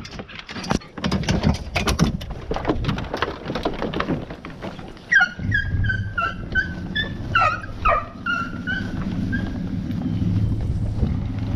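Hunting hounds (beagles) yelping in a run of short, high calls from about five seconds in, over a steady low hum. Before the calls come a series of sharp clatters and knocks.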